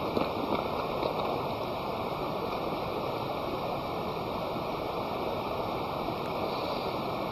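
Steady rushing noise with a few faint ticks.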